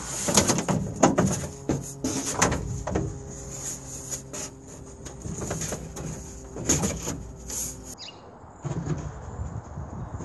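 Irregular knocks, clunks and rattles of a plywood ceiling panel and stove-fitting parts being handled and pushed into place inside a van.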